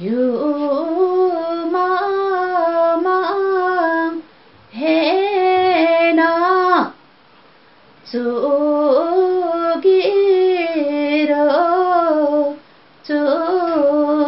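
A woman singing a Hakpare samlo, the traditional Limbu sung verse, unaccompanied, in long held phrases with bending, wavering pitch. She breaks off for a breath about four, seven and twelve and a half seconds in.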